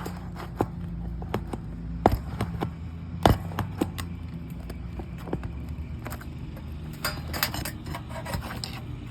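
Pry bar working roofing nails loose from old asphalt shingles: scattered metal clicks and knocks, two sharper ones about two and three seconds in, with a run of scraping near the end.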